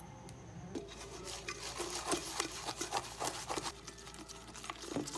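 Dalgona coffee mixture being beaten by hand in a stainless steel bowl: quick, uneven scraping and slapping strokes of the utensil against the metal, starting about a second in. The whipped coffee is thick and not very foamy.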